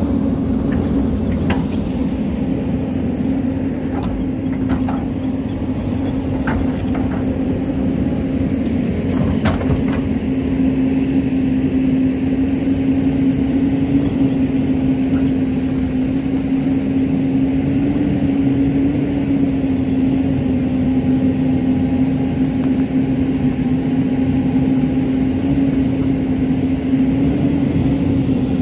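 Hyundai excavator's diesel engine running steadily under digging load, with a few sharp knocks in the first ten seconds or so as the bucket works the soil and stones.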